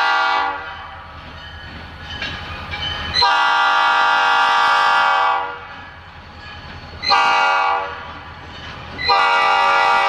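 Escanaba and Lake Superior EMD SD40-2 locomotive's air horn sounding the grade-crossing signal. The end of one long blast fades about half a second in, then comes a second long blast, a short one, and a final long blast that starts near the end.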